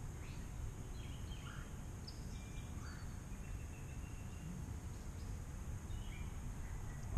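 Quiet woodland ambience: a few faint, short bird calls over a low rumble.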